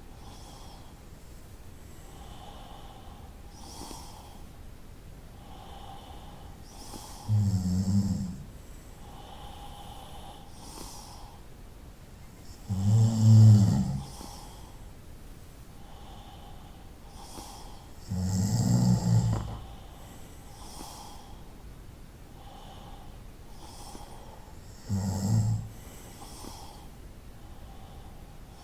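A person snoring: four loud, low snores, each about a second long and roughly five to six seconds apart, with fainter, softer sounds repeating between them.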